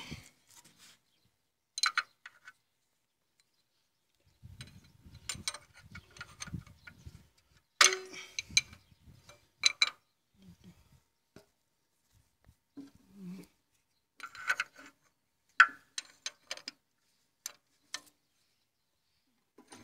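Scattered metallic clinks, taps and knocks from hand tools and engine parts being handled, in irregular clusters with quiet gaps between.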